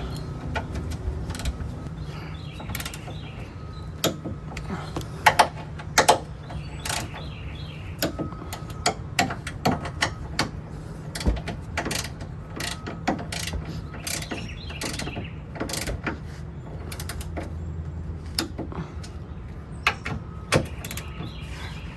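Ratcheting torque wrench clicking in irregular bursts as suspension bolts are torqued down, over a steady low hum.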